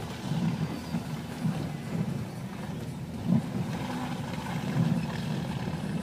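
Car engine and tyre noise heard from inside the cabin while driving along a rutted, snowy dirt track: a steady, uneven low rumble, with one brief knock a little past the middle.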